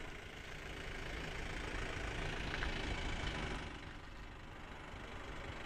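An engine idling steadily, a low rumble, with a faint click about two and a half seconds in.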